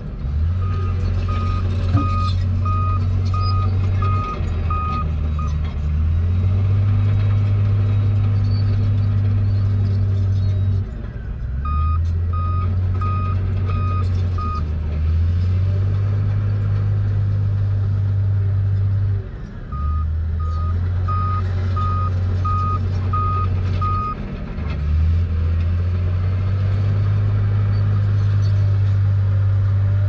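Heavy diesel earthmoving machinery running hard, its engine pitch shifting up and down every few seconds as it works. A backup alarm beeps in three runs of five to seven beeps each, about one and a half beeps a second.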